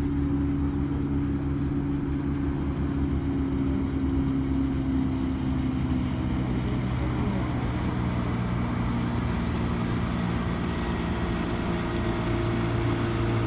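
Outboard motor of a small boat running steadily as it crosses the river, a continuous engine drone whose pitch shifts slightly partway through.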